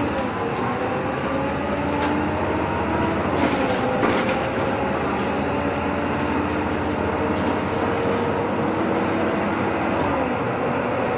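City bus running under way, heard from inside: the engine and transmission whine climbs in pitch and drops back at gear changes, about four seconds in and again near the end. Road rumble and a few short rattles run underneath.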